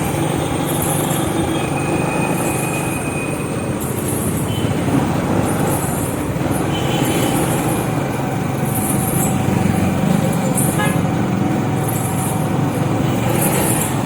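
A motor vehicle running steadily with constant engine and road noise, and a faint high hiss that pulses about once a second.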